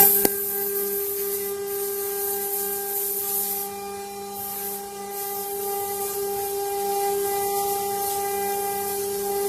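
CNC router spindle running with a steady high whine while its bit cuts wood, with a rasping hiss that rises and falls as it carves. There is a sharp click just after the start.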